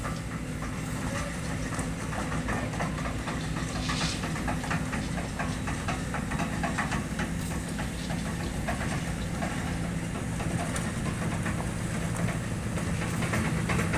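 Hydraulic excavator's diesel engine running steadily, with scattered light metallic ticks and rattles over it.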